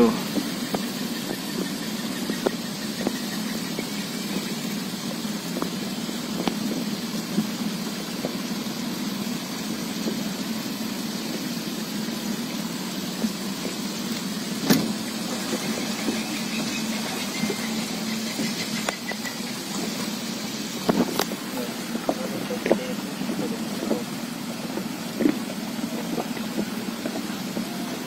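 Boat engine idling steadily, with a few sharp knocks partway through.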